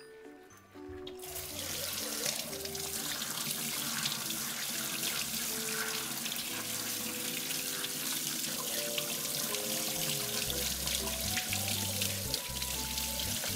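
Kitchen tap running into a stainless-steel sink as a whole raw chicken is rinsed and turned under the stream, the water starting about a second in. Background music plays along.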